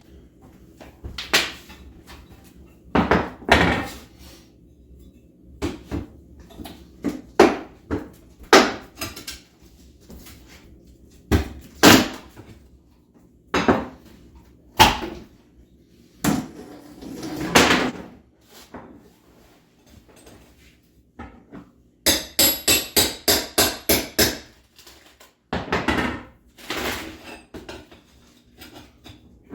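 Irregular knocks, bangs and clatters of hard objects being handled during kitchen demolition work. About three-quarters of the way through comes a quick run of about a dozen evenly spaced strikes, roughly four a second.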